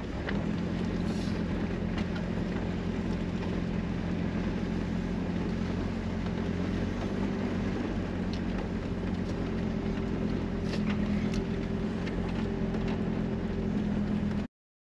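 Toyota motorhome's engine running steadily while the motorhome is driven slowly, heard from inside the cab with a low hum and road and rattle noise. The sound cuts off suddenly near the end.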